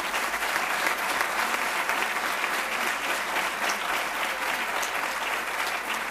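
Audience applauding steadily in a hall, a dense continuous clapping.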